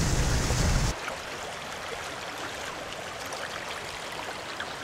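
A loud low rumble with hiss cuts off abruptly about a second in, giving way to the steady rushing of fast-flowing floodwater.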